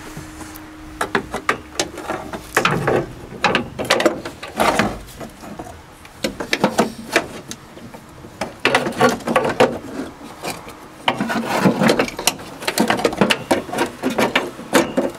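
Metal wiper linkage and spindle parts of an Opel Kadett D clicking, knocking and rattling as they are handled and fitted into place, in a quick, irregular run of clicks.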